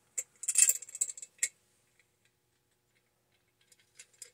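Light clicks and clinks of small metal parts being handled: a quick cluster in the first second and a half, then a few faint ticks near the end.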